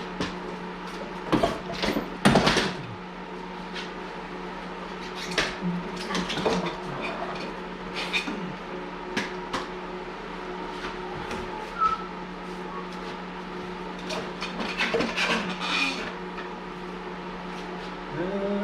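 Scattered metallic clanks and knocks of metal parts being handled while the snowmobile is raised on a jack, the two loudest close together about one and a half to two seconds in, over a steady low hum.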